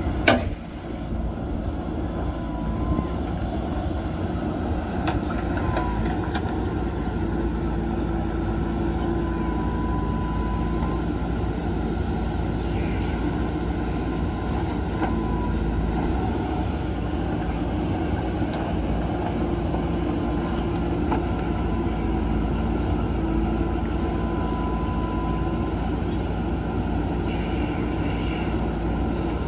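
JCB 3DX backhoe loader's diesel engine running steadily under hydraulic load while it swings and empties its bucket of soil into a dump truck. A sharp knock sounds right at the start.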